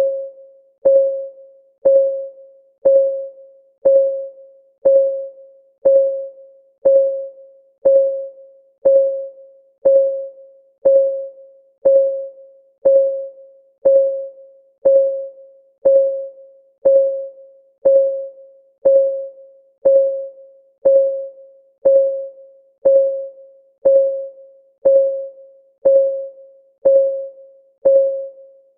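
Countdown timer's clock ticking sound: one short, pitched tick every second, each ringing briefly and dying away, evenly through the whole stretch.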